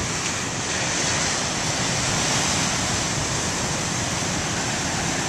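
Steady rushing noise of ocean surf mixed with wind on the microphone, with no single wave crash standing out.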